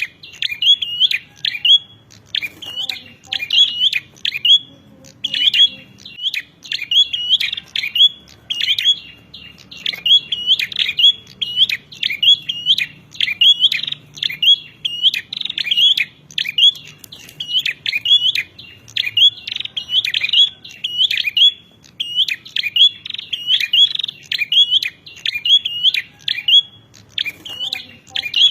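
Prenjak (prinias) giving rapid, agitated fighting calls: sharp, high chirps several a second in an unbroken run, the kind of calls used as a master recording to tutor caged songbirds.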